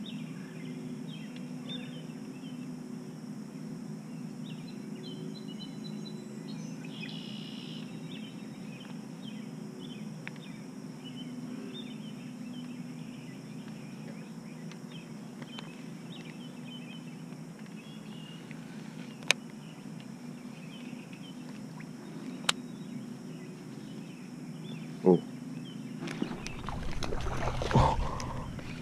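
Steady low hum of pondside ambience with faint high chirps and a few sharp clicks. Near the end comes a louder rush and a splash as a cast soft-plastic lure hits the water and a bass strikes it right at the surface.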